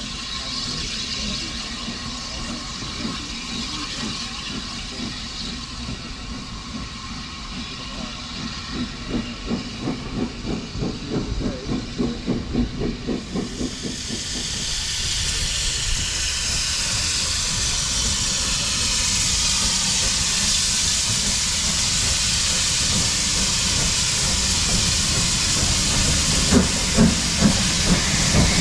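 A steam locomotive pulling a train out of a station, its exhaust beats coming in a regular run. Then loud, steady steam hiss from close beside LMS Ivatt Class 4MT 2-6-0 No. 43106, with a few heavy chuffs near the end as it starts to move.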